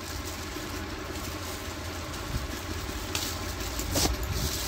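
Cloth rustling as a folded suit piece is handled and spread out, louder from about three seconds in with a small click near the end, over a steady low hum.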